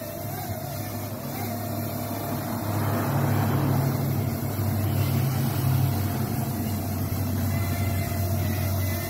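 Parrot Mambo mini quadcopter running, its propellers giving a steady, slightly wavering whine, over a low rumble of wind on the microphone that grows louder about three seconds in.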